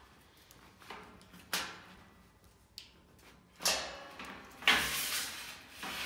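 Keys pressed and scraped against the metal lock tabs of a metal snake-rack frame, bending the tabs: a run of sharp metal clicks and scrapes, the loudest and longest scrape a little before the end.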